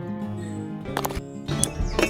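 Background music with steady held notes, cut by two sharp clicks about a second apart; a deep bass beat comes in near the end.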